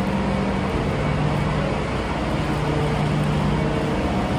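Steady background noise of an underground parking garage: an even rumble with a low hum under it.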